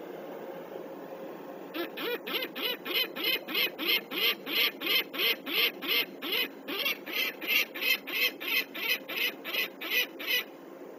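Peregrine falcon giving its harsh alarm call (cacking), a rapid, even series of calls about three per second that starts about two seconds in and stops shortly before the end. This is the falcon's alarm at an owl near the nest.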